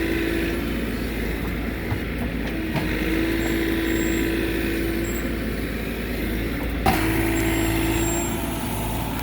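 Heavy digging machine's diesel engine running steadily under load, with a low steady whine that cuts in and out as it works. A brief knock about seven seconds in.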